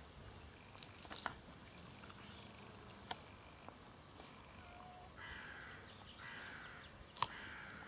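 Golden retriever gnawing a stick: a few sharp cracks of wood, the loudest near the end. Birds call faintly in the background, with a harsher call twice in the second half.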